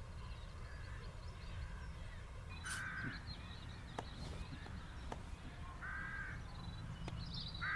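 A crow cawing three times, single harsh caws about three seconds apart, the first nearly three seconds in, over a steady low rumble of outdoor ambience with faint high bird chirps.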